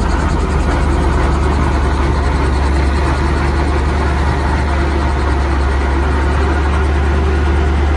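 Robinson R44 Raven helicopter's six-cylinder Lycoming piston engine and rotor running, a steady low drone heard from inside the cabin.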